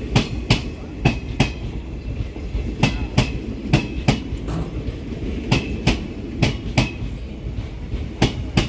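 Railway coaches rolling past, their wheels clacking over the rail joints: sharp clicks in quick pairs as each bogie's two axles cross, in groups of four about every three seconds, over a steady rumble with a faint wheel squeal.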